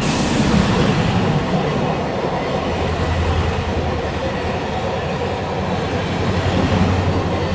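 A railway train running on the rails: a loud, steady, noisy rumble, with a rush of hiss at the start and a low steady hum through the middle.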